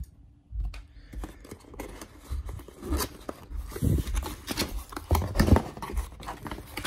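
Cardboard packaging being handled: a long cardboard box's end flap is opened and an inner box is slid out, giving irregular scraping, rubbing and knocking that is loudest a few seconds in.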